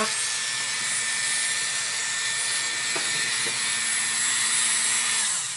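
Small Dremel rotary tool running steadily with a hissing grind as its bit pockmarks the inside of an acrylic pipe stem, roughening it so epoxy can grip. Near the end the motor switches off and its hum falls away.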